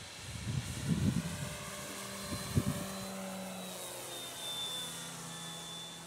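Electric radio-controlled model plane's motor and propeller whining in flight, its pitch dropping about halfway through as it passes. Low rumbling bumps of wind or handling on the microphone over the first few seconds.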